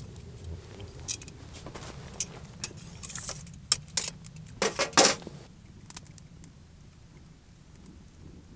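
An eating utensil clinking and scraping against an iron griddle plate while scooping up pepper rice. It is a run of light metallic clicks, densest and loudest about three to five seconds in, then sparser.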